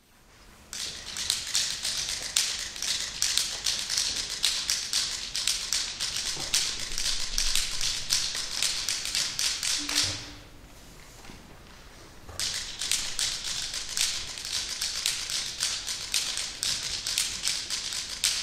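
Percussion ensemble playing a rapid, dense stream of dry, crisp clicks and taps, starting about a second in. The tapping stops for about two seconds near the middle, then picks up again.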